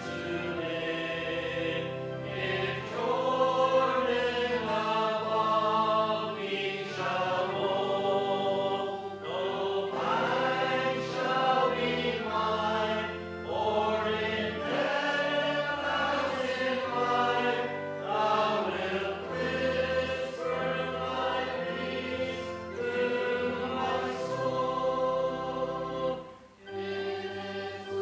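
A group of voices singing a worship hymn together over steady sustained accompaniment, with a short break between lines near the end.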